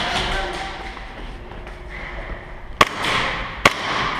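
Two sharp airsoft gun shots about a second apart, each cracking and then ringing briefly in the echoing indoor arena, over a fading rush of noise.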